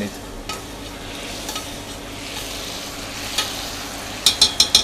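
A sauce of forest berries sizzling in a stainless steel saucepan on a gas burner while a spoon stirs it, with a steady hiss. Near the end comes a quick run of four or five sharp clinks.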